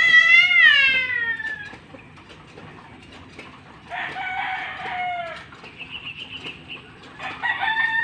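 Rooster crowing three times: a long crow falling away at the start, another about four seconds in, and a third near the end. A short run of quick high chirps comes between the second and third.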